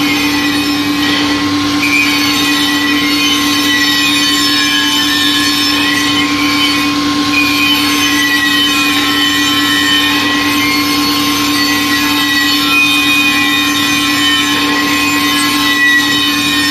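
Tyre changer's turntable running with a bare steel wheel clamped on it while a hand tool scrapes rust and dirt off the rim edge. A steady motor hum sits under a rough, uneven scratching.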